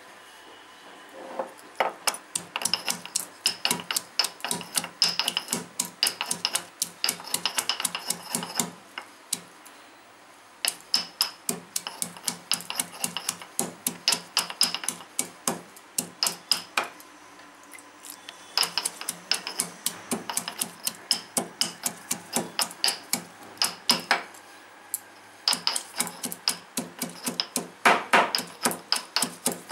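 Stone pestle pounding garlic cloves and ginger in a stone mortar, crushing them into paste: even strikes about three a second, in runs of several seconds with short breaks between.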